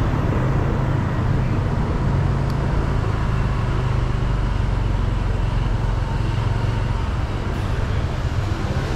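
Car being driven: a steady low rumble of engine and tyres on the road, with surrounding street traffic noise.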